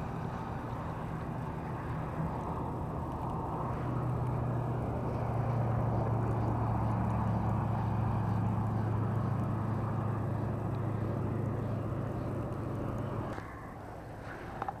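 A steady low engine hum that grows louder about four seconds in and stops suddenly near the end.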